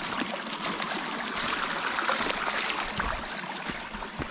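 Shallow creek running and trickling over stones, with footsteps on gravel and rock.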